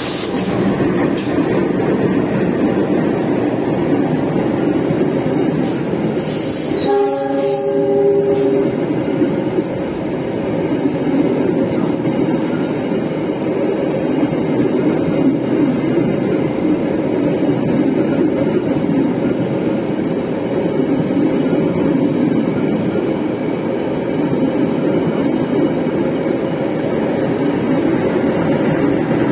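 Passenger train coaches rolling past close by, a steady loud rumble of wheels on the rails, with a short train horn blast about seven seconds in.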